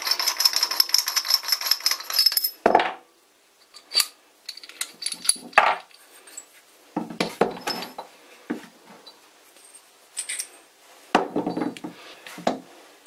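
Steel parts of a Metabo Futuro keyless drill chuck being turned and pulled apart by hand: a fast, even run of clicks for the first two and a half seconds as the parts turn against each other, then scattered clinks and knocks as the pieces are separated and set down on a wooden bench.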